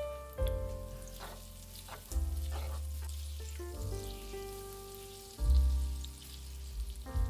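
Food sizzling and crackling in a hot frying pan, heard under background piano music.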